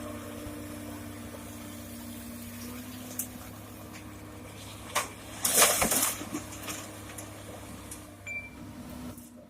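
Diesel engine of a Komatsu PC200-6 excavator running steadily at a low hum. A few sharp knocks break in, and a loud clatter of stone lasting under a second comes about five and a half seconds in.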